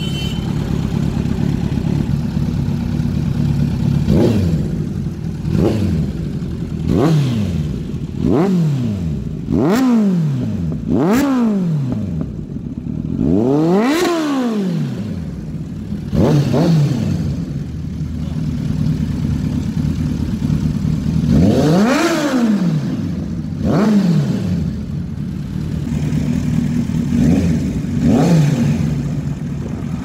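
Kawasaki Z900's inline-four engine through an Akrapovic shorty slip-on exhaust, revved while standing: about a dozen throttle blips that rise and fall back to a steady idle. The highest rev comes about halfway through and another long one a little after two-thirds in.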